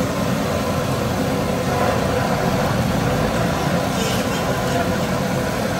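Steady din of a busy market street: traffic noise mixed with background chatter from a crowd.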